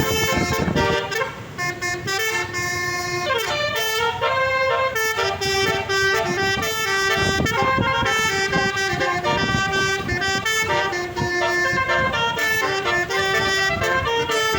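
Bus basuri horn, a multi-note musical air horn, playing a tune: a string of held horn notes that step up and down in pitch.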